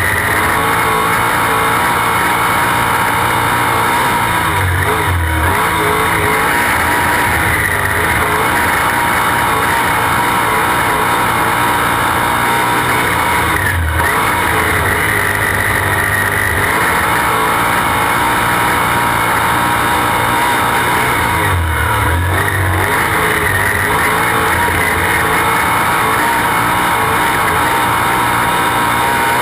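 Sprint car's V8 engine running hard at racing speed on a dirt oval, heard from the cockpit. The note drops briefly a few times, about every eight or nine seconds.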